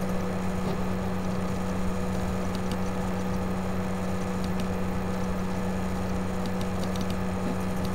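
Steady low electrical hum with background hiss from the recording setup, with a few faint clicks of a computer mouse scattered through.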